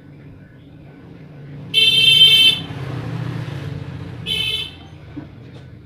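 A vehicle horn honking twice, a longer honk about two seconds in and a short one about two seconds later, over a low rumble.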